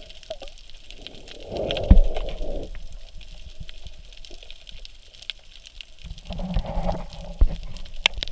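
Muffled water sound from a camera held just under the sea surface: water sloshing and gurgling in two swells about four seconds apart, with a few low knocks and faint scattered clicking.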